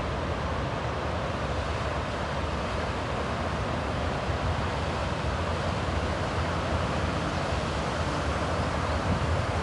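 Steady rush of ocean surf breaking and washing on a beach, with wind rumbling on the microphone.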